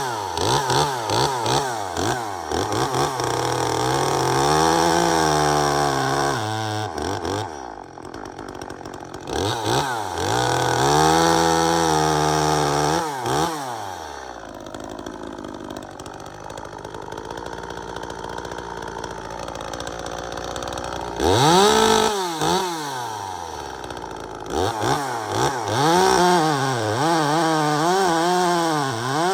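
Two-stroke top-handle chainsaw run hard through repeated cuts, its engine pitch swinging up and dipping down again and again as the chain bites. For several seconds in the middle it drops back to a lower, quieter run before revving through more cuts. The chain had been re-ground to cure grabbing and still cuts very aggressively.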